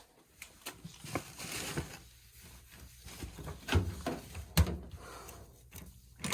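Handling knocks and clicks at an LG front-loading washer's drain filter, with light clicks early on and a few sharper knocks about four seconds in and again near the end.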